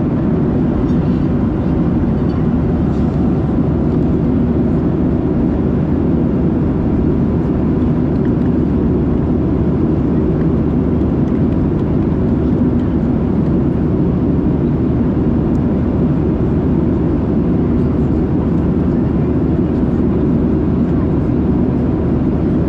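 Steady cabin noise of a Boeing 737-700 in flight: an even, low rumble of engine and airflow heard from inside the passenger cabin.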